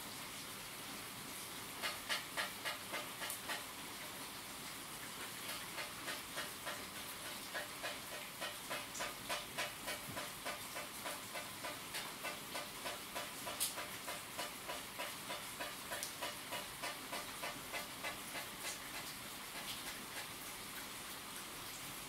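Steady rain hiss. Over most of it runs a regular series of soft beats, about two a second, from something repeating in the rain, with one sharper click partway through.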